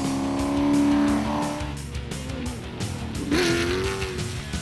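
Off-road race buggy engines revving hard over background music with a steady beat: one engine held at high revs for about a second and a half, then another sweeping up sharply just after three seconds in.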